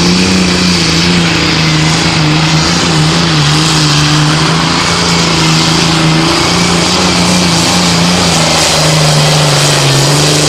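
Super stock pulling tractor's diesel engine running flat out at high revs as it drags the weight-transfer sled down the track. The pitch holds nearly steady with a slight waver, dipping a little near the end.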